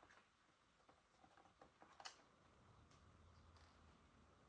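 Near silence: faint room tone with a single soft click about two seconds in.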